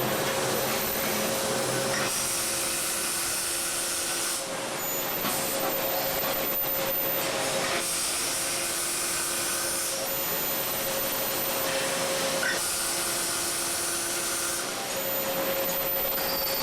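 Welding on an exhaust pipe: a steady hissing crackle over a constant hum, brightening in repeated stretches of about two seconds.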